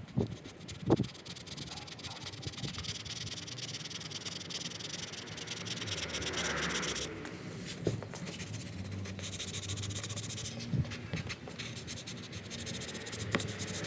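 Plastic squeegee rubbing and scraping over the transfer tape of a vinyl decal on a car window, pressing the sticker onto the glass, with a few light knocks.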